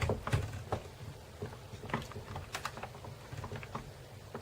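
Irregular light clicks and taps of a laptop's plastic case and parts being handled.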